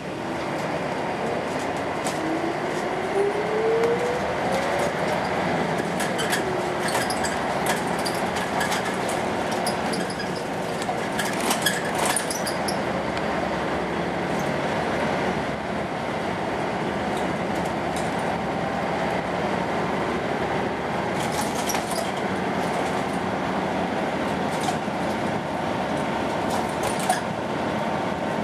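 Volvo B10M bus's mid-mounted six-cylinder diesel engine pulling the bus along, heard from inside the saloon, its note rising over the first few seconds as it accelerates, then running steadily. Spells of short rattling come in now and then.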